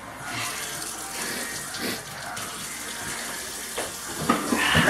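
Water running steadily from a tap, with a louder rush of noise near the end.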